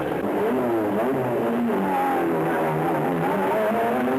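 Vintage racing car engines revving, several at once, their pitch rising and falling and overlapping.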